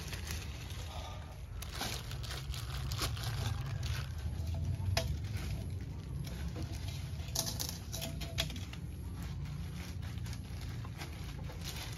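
Marinated ground beef being scooped into a food storage box: irregular taps, scrapes and handling clicks over a steady low rumble.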